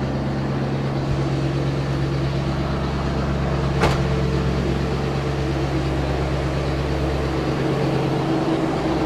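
A rebuilt, carbureted 351 Windsor V8 in a 1991 Ford F250 idling steadily at about 1,000 rpm at full operating temperature. A single sharp click sounds about four seconds in.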